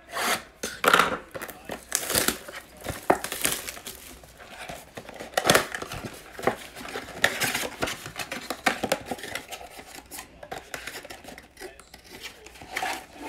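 Plastic shrink wrap on a cardboard trading-card box being slit with a small box cutter and peeled off, crinkling and tearing in quick irregular crackles, then the box's cardboard flap opened near the end.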